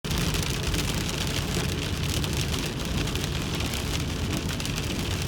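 Rain pelting a moving car, a steady hiss over the low rumble of road and engine noise.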